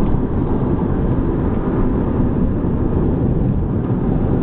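Steady road noise heard from inside a moving car: tyre and engine rumble at highway speed.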